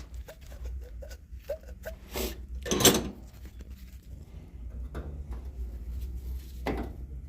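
Rummaging and handling of parts: small knocks and clicks, a loud scraping rustle about three seconds in and a shorter one near the end, over a low steady hum.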